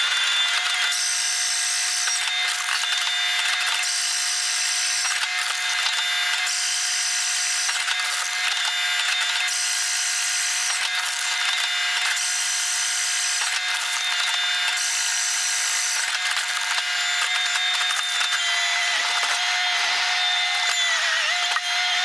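Skid steer working a Halverson HWP 150 firewood processor through a log. A steady machine whine runs throughout, and a higher whirring rises over it for about a second at a time, roughly every two and a half seconds.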